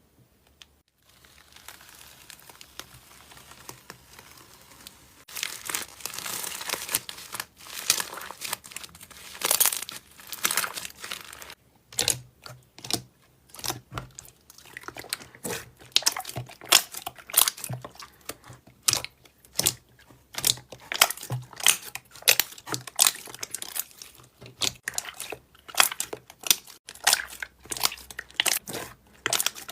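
Crunchy slime being squeezed and kneaded by hand. It starts with a soft rustle, then turns to dense crinkling and crackling. After a short pause it becomes a run of sharp, separate crackles and pops.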